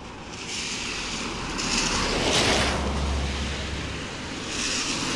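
Roar of rushing floodwater mixed with wind buffeting the microphone, swelling in surges, with a deep rumble in the middle as a vehicle passes on the road.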